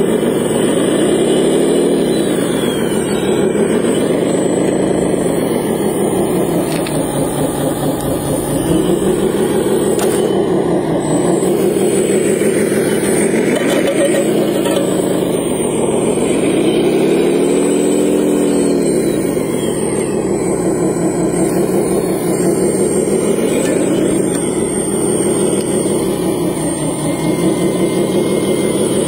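Radio-controlled model wheel loader at work, its engine-like drone rising and falling in pitch about five times as it revs up and settles back, over a steady high whine.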